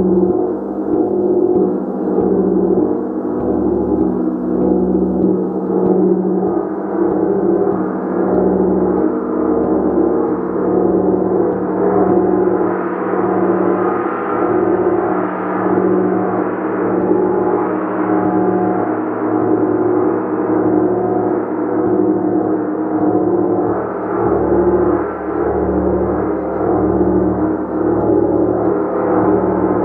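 A gong played continuously with soft, repeated strokes, sustaining a dense wash of many overlapping tones that swells about every second and a half. The sound grows brighter about twelve seconds in.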